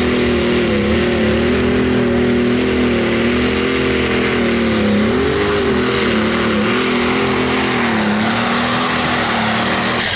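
Light-limited super stock pulling tractor's engine running hard under load as it pulls the sled down the track. Its pitch wavers, sagging and recovering a couple of times.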